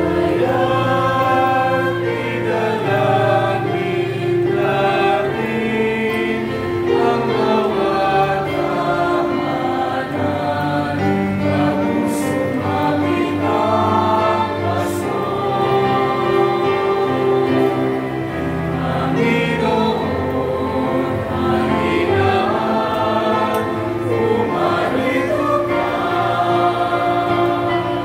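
Mixed choir of women's and men's voices singing a Tagalog hymn in parts, with sustained, held notes.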